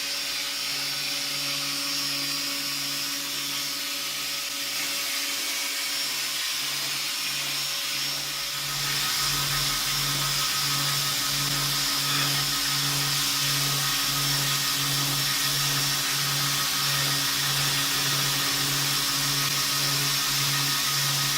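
Homemade belt grinder running steadily, with a low pulse about twice a second. About eight or nine seconds in it gets a little louder and fuller, then holds.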